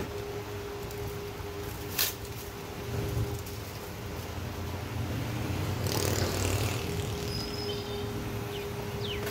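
Steady workshop background hum and low rumble, with a sharp click about two seconds in and a brief rustle of parts being handled around six seconds in.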